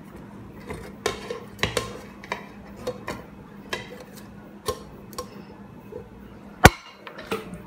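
Glass serving dish and metal pudding mould knocking and clinking against each other as they are handled together to turn the pudding out. There is a run of light taps, with one sharp, loud clink about two-thirds of the way through.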